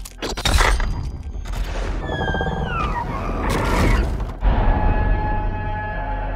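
Monster-battle film soundtrack: heavy crashes and booms, with a creature's shrieking cry falling in pitch twice about two to three seconds in, and another crash just after four seconds, giving way to steadier held tones of the score.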